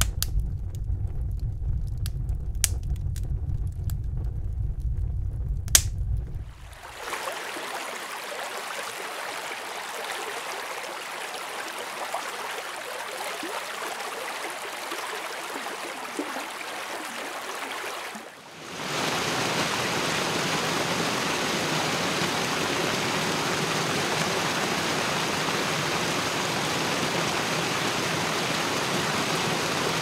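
Wood fire crackling and popping in a fireplace over a low rumble of flames. About six and a half seconds in it gives way to a steady, softer hiss of water, and about eighteen seconds in to a louder, even rush of churning water.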